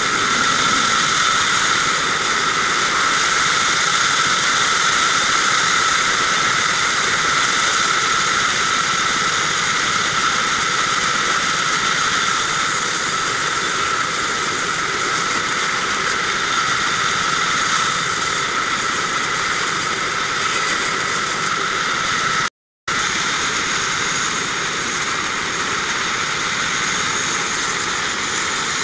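Vertical band saw running and cutting through short lengths of log, a steady high-pitched whine over a rushing hiss. The sound cuts out to silence for an instant about three-quarters of the way through.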